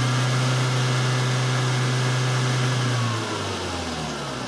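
Audi A3's 1.6-litre BSE 8-valve four-cylinder petrol engine held at high revs with a steady pitch, then the revs drop back toward idle about three seconds in.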